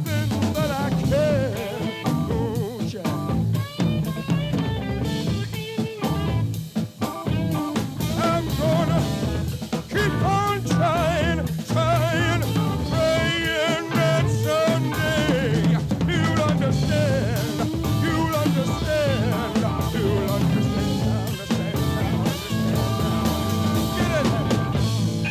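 Live blues-rock band playing loud: busy drum kit, bass, and a wavering lead line with heavy vibrato over the top.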